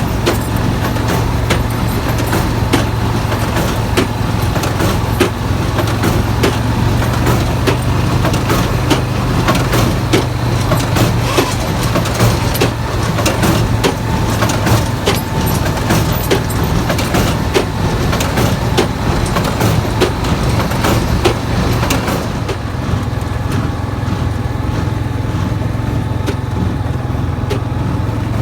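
Tractor engine and hay baler running steadily: a constant diesel drone with frequent clicks and rattles from the machinery. The rattling and hiss fall away about 22 seconds in while the engine runs on.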